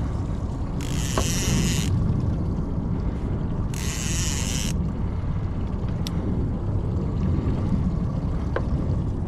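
Boat's outboard motor running steadily at trolling speed, a low rumble with water and wind noise. Two short high buzzes, each about a second long, come about one and four seconds in.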